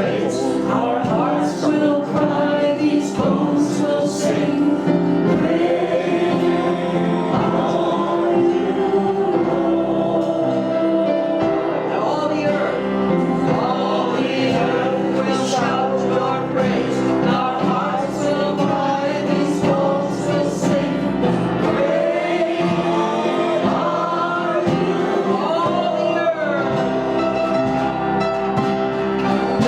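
Group worship singing: many voices sing a gospel praise song together over a sustained musical accompaniment, without a break.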